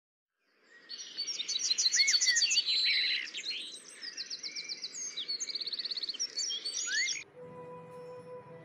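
Several birds singing and chirping, with rapid trills and short whistled upslurs. The song stops abruptly about seven seconds in, and faint music with held notes begins.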